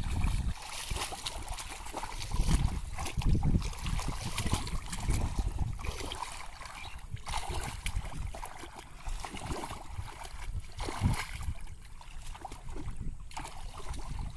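Shallow muddy water sloshing and splashing as hands and legs churn through the flooded mud, with irregular wet squelches and trickles.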